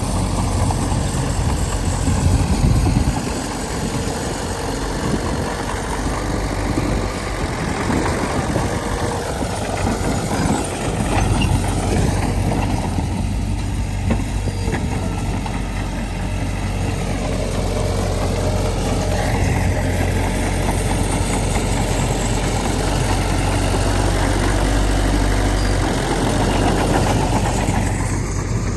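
Heavy diesel engine of earthmoving machinery running steadily, with rattling clatter in the first few seconds, then a steadier drone whose pitch shifts a little now and then.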